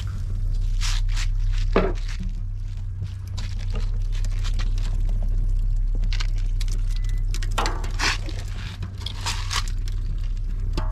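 Steady low hum under scattered short clicks, scrapes and wet squishes from hands and utensils working raw food.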